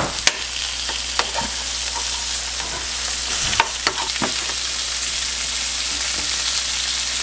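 Blackened hogfish fillets sizzling in butter in a pan, a steady frying hiss. A few sharp clicks and scrapes of a utensil against the pan come near the start and again about four seconds in.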